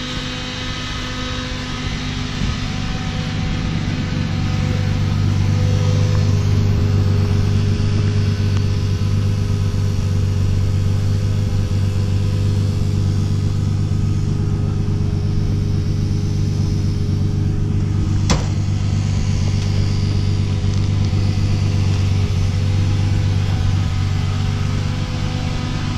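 A steady engine hum at a constant pitch, like a motor idling, swelling over the first few seconds and then holding. A single sharp click sounds about eighteen seconds in.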